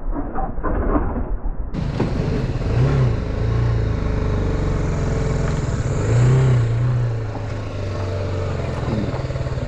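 Motorcycle engine running under way with wind noise over the camera; its pitch rises and falls twice, about three and six seconds in. The first second and a half sounds muffled.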